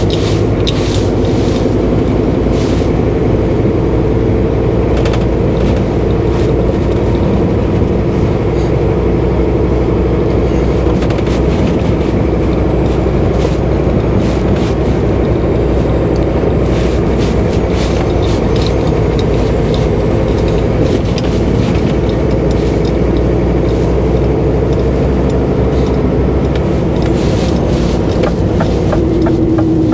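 Renault HGV's diesel engine running steadily, heard from inside the cab, with scattered short knocks and rattles.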